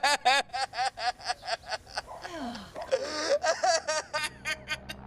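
A man sobbing in quick, rhythmic gasping cries, about five a second, each falling in pitch. The cries grow weaker toward the end.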